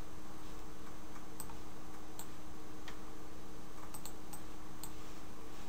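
A handful of faint, scattered computer mouse clicks over a steady electrical hum and microphone hiss.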